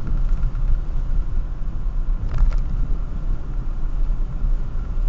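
Car driving at speed, heard from inside the cabin: a steady low engine and road rumble, with a couple of faint clicks a little over two seconds in.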